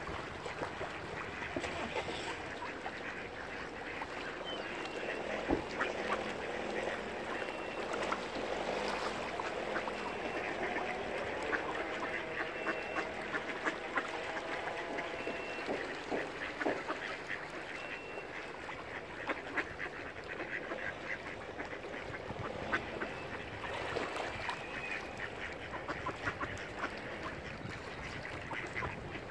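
Mallard ducks quacking on and off, among many short clicks and taps.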